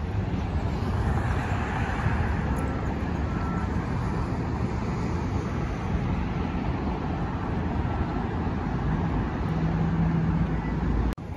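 Steady road traffic noise from cars passing on a wide city road, with a low engine hum standing out near the end before the sound cuts off suddenly.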